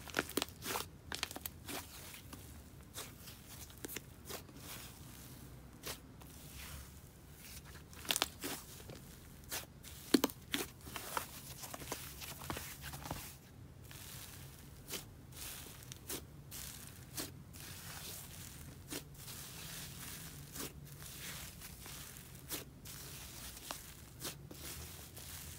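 Soft, wet icy slime being squished, folded and stretched by hand, making irregular sizzly crackles and small pops, a few of them loud and sharp.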